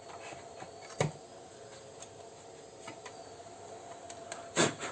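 Handling noise of an old loudspeaker being wiped clean: two sharp knocks, about a second in and near the end, with light clicks between, over a faint steady hum.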